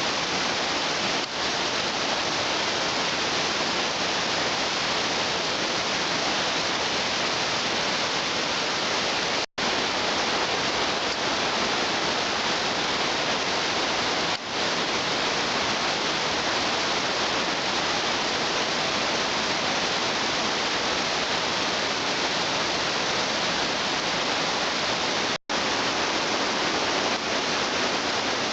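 Waterfall rushing: a steady, dense wash of falling water, broken off sharply for an instant twice, about a third of the way in and near the end.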